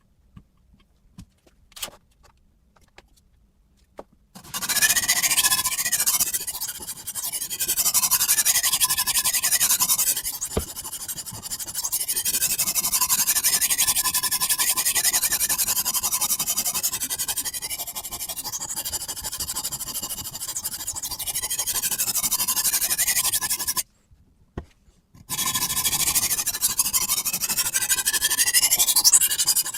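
Kitchen knife blade scraped on the stone of a Kosim guided-angle sharpener: continuous rasping strokes with a squealing edge. It starts about four seconds in after a few light clicks, stops for a moment about three-quarters of the way through, then resumes.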